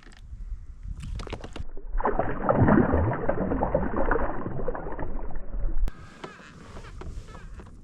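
Water sloshing and splashing against the side of a fishing kayak for about four seconds, preceded by a few sharp clicks and knocks; it cuts off abruptly near the end.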